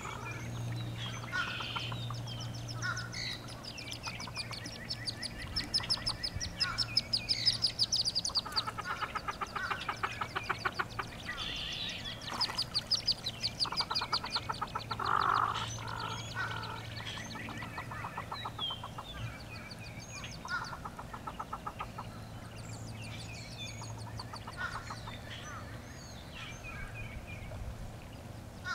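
Hooded merganser hen calling to her brood in repeated rapid clucking trains, with thin peeping from the ducklings. The calls come in bursts, loudest about a quarter and halfway through.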